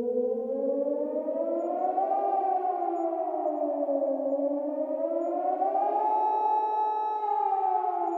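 Emergency warning siren wailing, its pitch rising and falling slowly about once every four seconds, with two tones sounding together.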